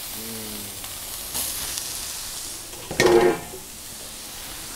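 Blackened-seasoned tripletail fillets sizzling on an oiled flat-top griddle. The sizzle swells a little over a second in as a second fillet goes down. A short, louder pitched sound cuts in about three seconds in.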